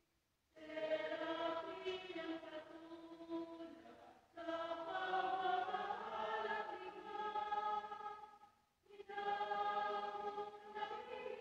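Choir singing a hymn in held notes, three phrases with short pauses between them: the closing hymn after the Mass's dismissal.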